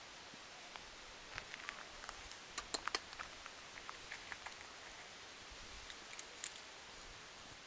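Kittens eating dry cat kibble: faint, scattered crisp clicks and crunches over a steady low hiss, with a cluster of louder clicks about three seconds in.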